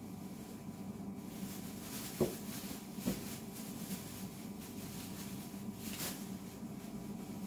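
Quiet room tone with a steady low hum, and two soft knocks about a second apart near the middle.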